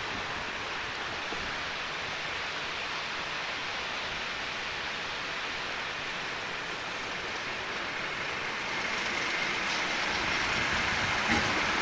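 Steady rushing hiss on the camcorder microphone, with a Class 37 diesel locomotive and its coaches approaching and growing louder over the last few seconds, a faint steady tone rising out of the noise near the end.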